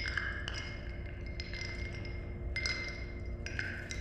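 Ice cubes clinking against a glass: several light, irregular clinks, each with a short glassy ring at the same pitches, over a steady low rumble.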